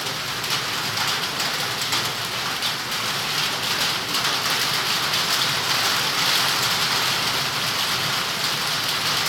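Heavy rain falling steadily: a dense, even hiss of many drops striking surfaces.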